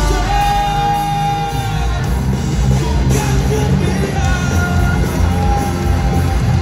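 Live rock band playing electric guitars, bass and drums with a lead singer, heard from the crowd through a phone's microphone. The singer holds a long note near the start and another, higher one about four seconds in.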